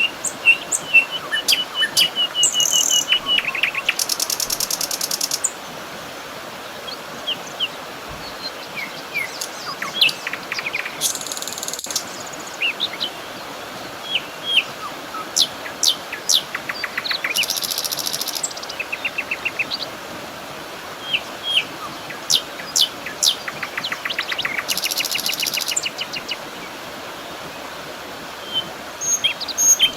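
Birds calling: many short, sharp chirps scattered throughout, with rapid buzzy trills lasting a second or two about four seconds in, again around seventeen seconds and around twenty-five seconds, over a steady background hiss.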